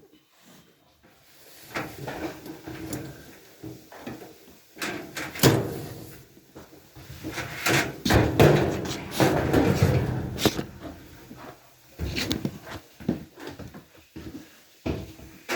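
Irregular knocks and clatter of dryer panels and parts being handled during disassembly, heaviest in the middle.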